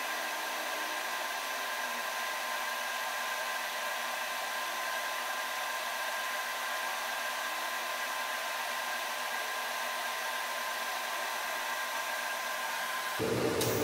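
TIG welding steel angle iron onto a steel tray in short stitch welds: a steady hiss from the arc and welding machine, with faint steady tones. About 13 seconds in it changes abruptly to a louder, lower hum.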